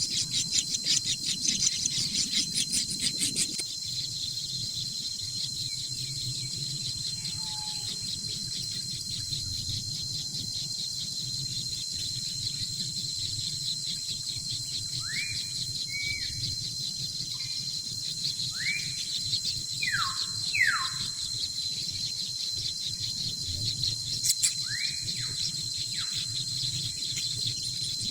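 Insects keep up a steady high-pitched drone, with fast pulsing for the first few seconds. About halfway through, a bird gives a series of short, sharp calls, about eight notes over ten seconds.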